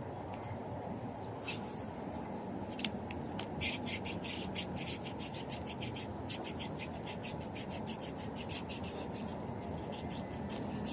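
Small spinning reel being cranked to retrieve a frog lure: a steady rubbing whir, with a run of quick light ticks through the middle and later part.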